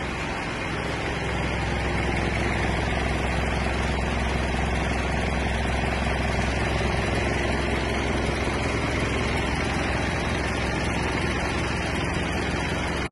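Mitsubishi Shogun's 3.2-litre DI-D turbo-diesel engine idling steadily under the open bonnet, a little louder from about two seconds in.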